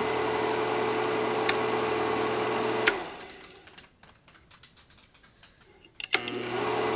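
Film projector motor running with a steady hum, shut off about three seconds in with a click and winding down with a falling pitch. After a few quieter seconds it starts again with a click and spins back up to a steady hum.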